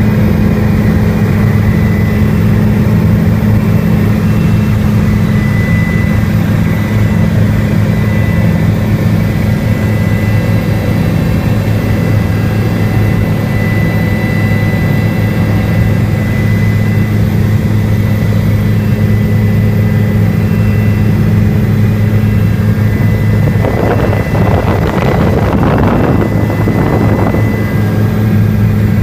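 Helicopter in flight: a loud, steady drone with a thin steady whine above it. About three-quarters of the way through, a brief surge of louder noise lasts a few seconds.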